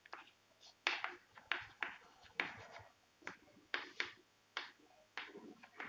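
Chalk writing on a chalkboard: a string of about fifteen short, irregular taps and scratches as letters are drawn.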